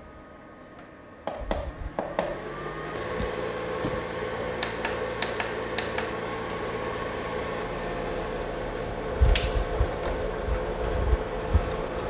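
Button clicks on small desktop evaporative air coolers, then their fans start running with a steady hum and whir of blown air about a second in. A few more clicks follow, then a sharper click near nine seconds with some low thumps after it.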